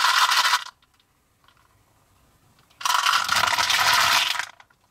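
M&M's candies pouring from a clear plastic tub onto more candies in a plastic tray: a dense rattle of many small hard pieces. It comes in two bursts, one stopping about half a second in and the other starting about three seconds in and stopping shortly before the end.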